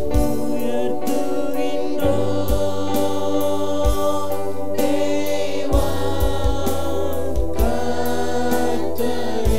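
A worship choir of young women and men singing a gospel song together, backed by held keyboard chords, bass notes and irregular drum beats.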